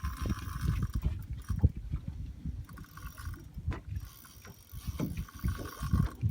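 Fishing reel whirring in three stretches of about a second each while a tarpon is played, over a low uneven rumble.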